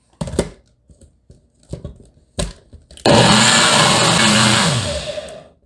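A few knocks as the personal blender's cup is handled and set onto the motor base, then about three seconds in the blender motor starts and runs loud for about two seconds, blending a smoothie of oats, flax seeds and fruit, before winding down in pitch near the end.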